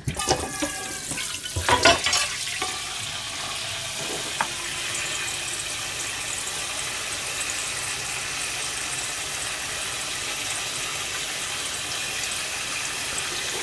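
A kitchen tap running steadily into a stainless-steel sink. In the first couple of seconds a frying pan and dishes knock and clatter in the sink.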